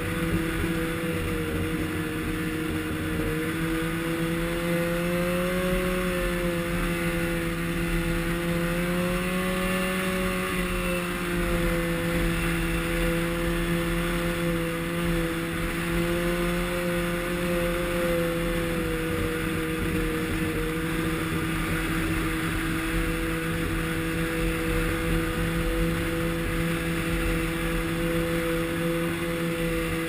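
Snowmobile engine running steadily at cruising speed, its pitch swelling slightly and settling back about six and ten seconds in, over a steady rushing noise.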